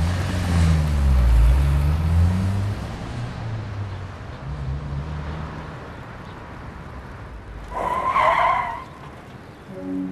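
Car engine accelerating away, rising in pitch over the first couple of seconds and then fading, followed about eight seconds in by a short, loud tyre screech.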